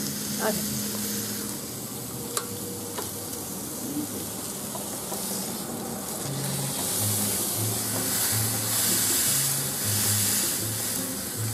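Beef steak sizzling on a Chefman electric contact grill: a steady frying hiss, with a sharp click about two seconds in.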